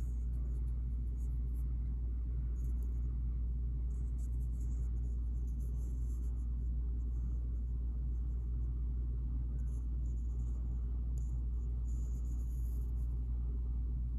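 A steady low rumble of background noise, with faint light taps and rustles now and then as small LED modules are set down on paper.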